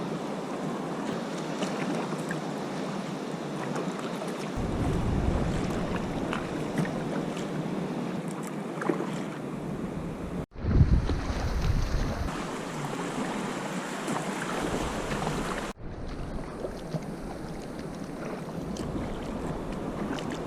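Sea water splashing and lapping around a sea kayak, with gusts of wind buffeting the microphone. The sound breaks off abruptly twice as one clip gives way to the next.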